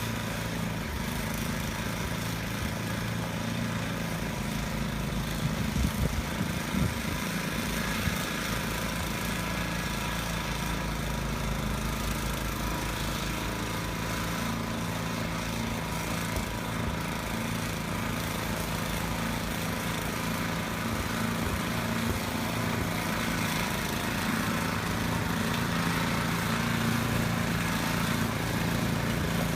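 Snowblower's small engine running steadily while clearing snow, with a few brief louder spikes about six to seven seconds in.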